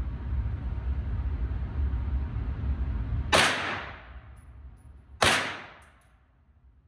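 Two gunshots about two seconds apart, each a sharp crack with a ringing decay, the first coming about halfway in. A steady low rumble runs until the first shot.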